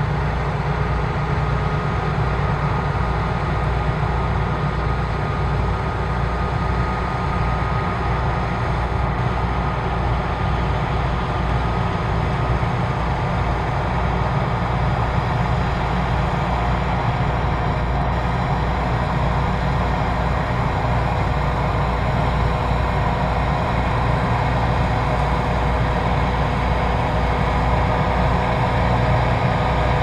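Claas Tucano 440 combine harvester running under load while cutting grain: a steady engine drone with a constant high whine from the machine's drives, growing slightly louder near the end.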